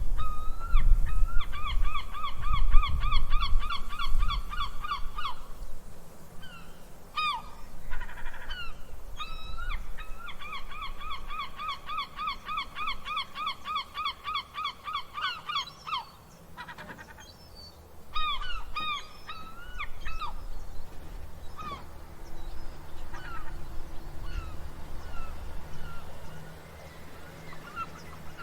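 Seagulls calling: two long runs of rapid, repeated laughing cries, the first about a second in and the second near the middle, with single shrieks scattered between and fewer calls near the end. A low rumble sits under the calls in the first few seconds.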